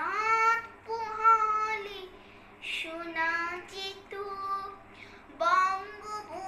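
A young girl singing a Bengali song unaccompanied, in short phrases of held notes with brief pauses between them.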